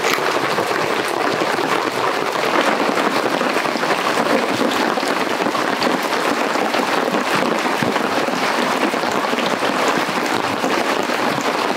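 Heavy rain falling steadily on a tarp overhead.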